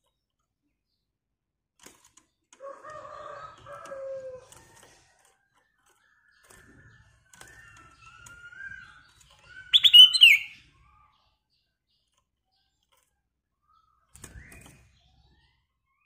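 A caged black-crested bulbul gives scattered short whistled calls. The loudest is a quick high note that rises and falls about ten seconds in, and a lower call comes about three seconds in. Clicks and wing flutters are heard as it hops about the cage.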